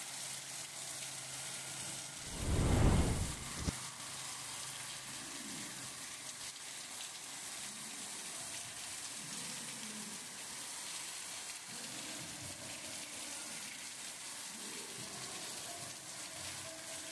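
Heavy rain falling and water running across a flooded street: a steady hiss. About two seconds in, a loud low rumble lasts about a second and a half and cuts off abruptly.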